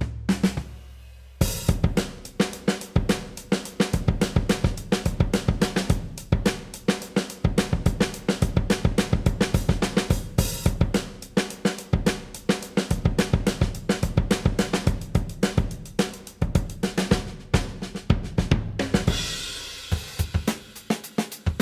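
Sampled acoustic drum kit from Native Instruments' Abbey Road Drums library playing a kick, snare and hi-hat groove, dry with no compression or EQ. The groove breaks off briefly about a second in, then starts again, and a cymbal washes over it near the end.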